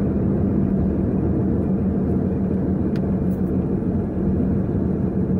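Steady engine hum and road rumble of a moving car, heard from on board, with one faint click about three seconds in.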